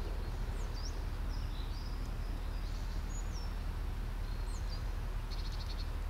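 Outdoor ambience: a steady low background rumble with small birds chirping faintly now and then. A short, rapid trill comes near the end.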